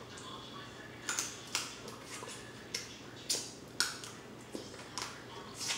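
Close-up eating sounds while picking at king crab legs: about a dozen short, wet smacks and clicks at an irregular pace from the mouth and from sucking the fingers.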